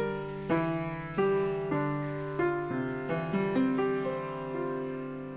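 Background piano music: a slow melody of struck notes, each fading away, over held lower chords.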